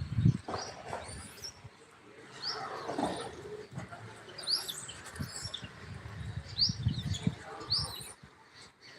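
Short high bird chirps, repeating every second or so, over low rumbling and knocks.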